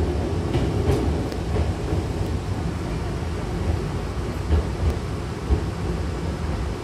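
Steady low rumble of a Hankyu train heard from inside the passenger car, with a few low thumps about two thirds of the way through.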